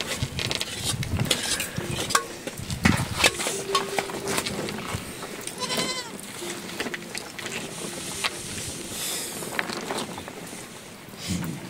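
Goats and sheep of a herded flock bleating now and then, with scattered clicks and knocks throughout.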